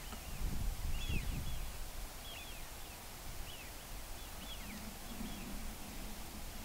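A flock of Eurasian wigeon, the drakes whistling: many short high whistles that rise then fall, coming every half second to a second, over a low rumble.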